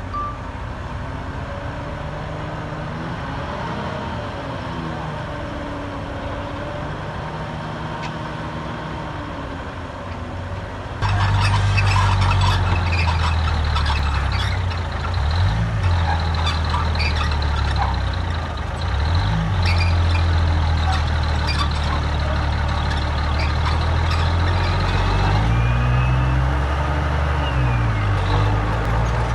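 Heavy diesel construction machinery working: engines running under changing load, rising and falling in pitch. About eleven seconds in the sound jumps louder, with a deeper engine and frequent metallic clanks and rattles over a steady high whine.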